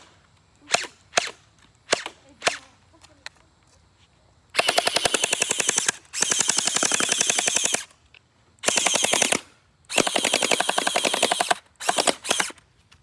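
Gel blaster firing: several single shots, then four long bursts of rapid automatic fire, then a few more single shots near the end.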